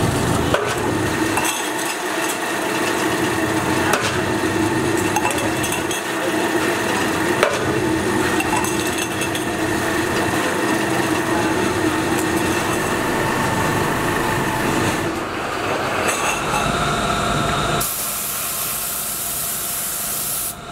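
A metal-forming press in an oil filter workshop running with a steady hum and a few sharp metal knocks as steel filter housings are pressed. About three seconds from the end a steady hiss of a paint spray gun takes over.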